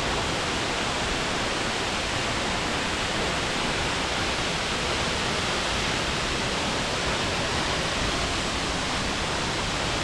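Gveleti Big Waterfall, a tall mountain waterfall plunging down a rock face into a pool, making a steady, even rushing noise.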